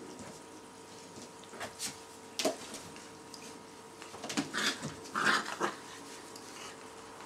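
Chocolate Labrador puppies and their mother playing, giving short dog vocalisations: a few brief ones about a second and a half in, then a cluster of louder ones in the second half.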